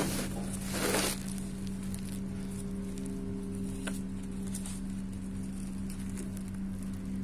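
Brief rustling twice in the first second or so, over a steady low hum, with a single faint click about four seconds in.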